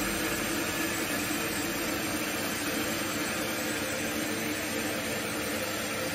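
Steady machinery hum with a constant hiss and a few faint steady tones, unchanging throughout.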